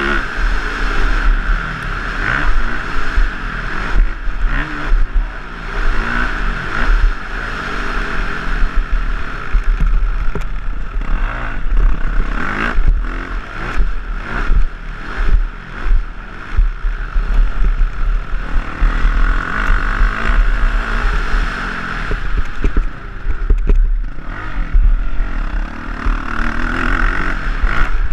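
Motocross bike engine under race load, revving up and falling off again and again as the rider works the throttle through ruts and jumps, with sharp knocks and clatter from the bike over the bumps. Heavy wind rumble on a helmet-mounted microphone runs underneath.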